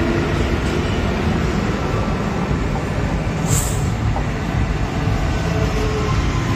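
Electric local train (EMU) running along the platform, a steady rumble of wheels on the rails, with a brief high hiss about three and a half seconds in.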